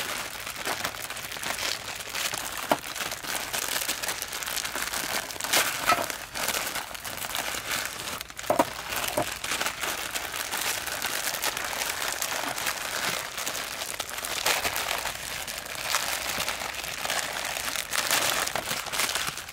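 Plastic instant-noodle packets crinkling as they are opened by hand and the dry noodle blocks pulled out: a continuous rustling dotted with sharp crackles.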